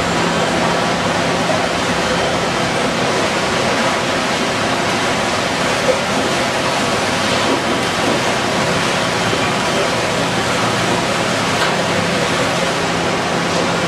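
Steady loud din of a single-stream recycling sorting line: conveyor belts and sorting machinery running, an even hiss over a low hum, with one brief knock about six seconds in.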